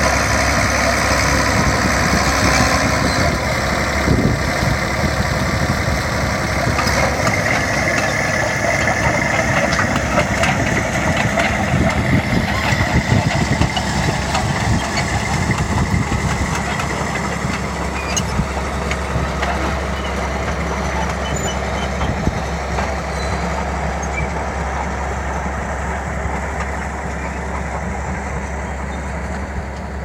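Crawler bulldozer's diesel engine running steadily, growing gradually fainter over the second half.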